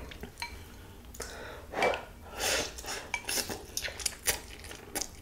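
Wooden chopsticks clicking and tapping against a glass bowl as stir-fried instant noodles are picked up, with short wet noisy bursts of the noodles being drawn into the mouth.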